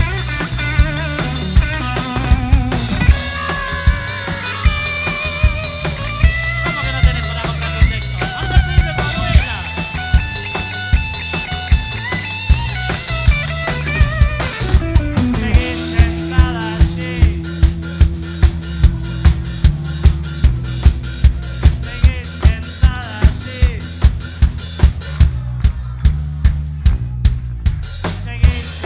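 Live rock band playing an instrumental passage: a drum kit keeps a steady beat under bass and a melodic instrument with sliding, bending lines. About halfway it slides down into a long held note while the drum hits, about twice a second, come to the fore.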